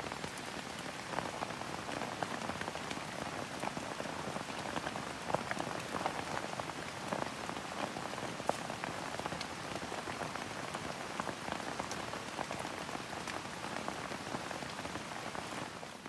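Heavy rain falling on leaves, a steady hiss with many individual drops tapping through it.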